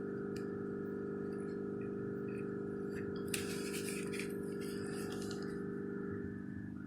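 Steady hum of several even tones under faint clicks and rattles of small caparison ornaments being handled while glue is spread along their sides.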